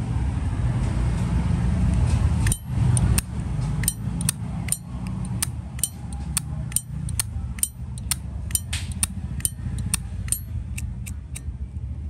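A brass Zippo lighter's lid being flicked open and snapped shut over and over, giving a quick run of sharp metallic clinks, roughly three a second, from about two and a half seconds in until near the end. A steady low rumble sits underneath.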